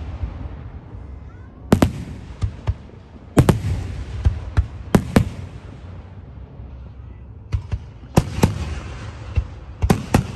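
Aerial fireworks shells bursting: a series of sharp bangs, often two or three close together, with a low rumble carrying on between them and a short lull about two-thirds of the way through.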